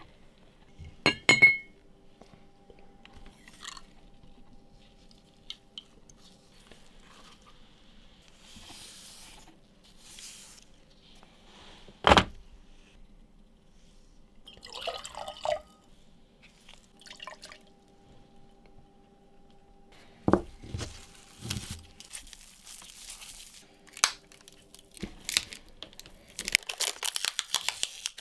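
Workbench handling sounds: a glass jar and its plastic lid clinking as it is opened, scattered knocks as the blocks are set down, with a sharp knock about twelve seconds in, and aluminium foil crinkling near the end. A faint steady hum runs underneath.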